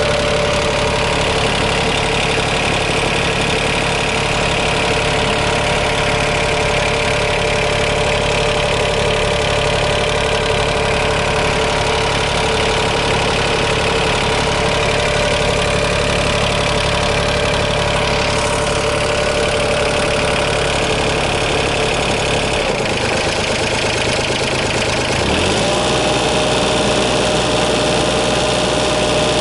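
Yanmar VIO20-1 mini excavator's diesel engine running steadily. About three-quarters of the way through, its low hum changes; a couple of seconds later it rises and settles at a new steady pitch.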